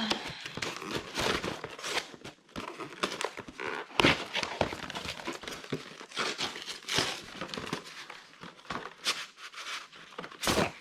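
A drone's retail packaging being opened by hand: irregular crinkling and tearing, with scattered sharp clicks and knocks.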